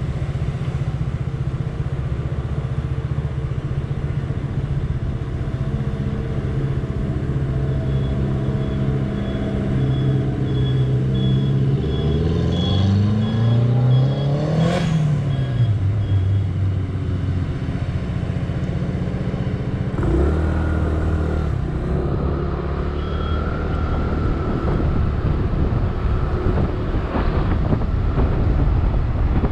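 Motor scooter engine idling at a stop, then pulling away with its pitch rising to a peak about halfway through and falling back. A high beep repeats about twice a second around the pull-away. Road and wind noise follow while riding.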